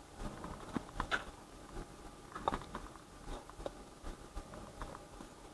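Faint, scattered light clicks and taps of fingers handling a small clear plastic container, with a couple of slightly louder ticks about a second in and two and a half seconds in.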